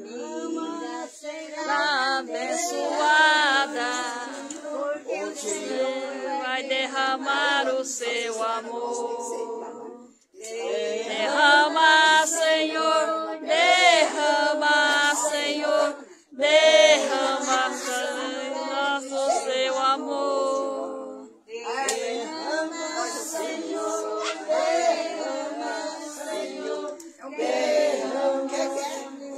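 A small group of voices, mostly women, singing a devotional hymn together without instruments, in sung lines with short breaks between them.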